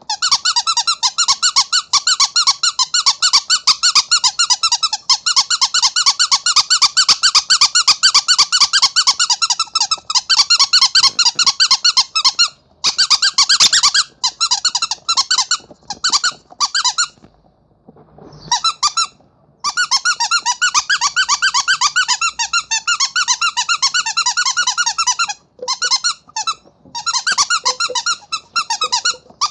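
Rubber monkey squeaky toy squeezed over and over in fast runs of high-pitched squeaks, with a few short pauses.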